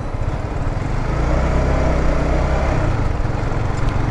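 Motorcycle engine running under way, with steady road and wind noise, growing louder about a second in and then holding level.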